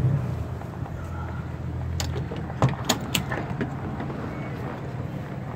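Strong wind rumbling on the microphone in a snowstorm, with a scattering of light clicks and knocks from about two seconds in.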